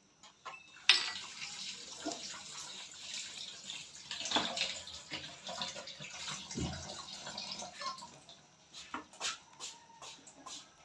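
A spoon stirring and scraping a wet, saucy filling in a frying pan on the stove. The filling sizzles and fizzes from about a second in, with sharp scrapes of the spoon against the pan. Near the end the hiss fades to a few separate spoon clicks.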